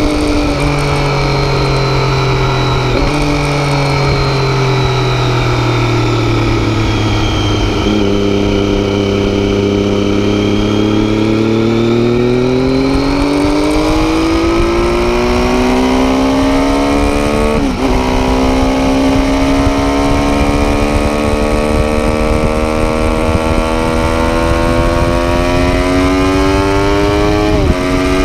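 Triumph Daytona 675's inline three-cylinder engine through an Arrow exhaust, ridden hard. The engine note falls for the first several seconds, then climbs steadily under acceleration, with quick upshifts at about eighteen seconds and again near the end.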